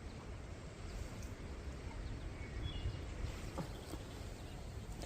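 Outdoor ambience: a steady low rumble with a few faint clicks and a brief, faint high chirp a little past halfway.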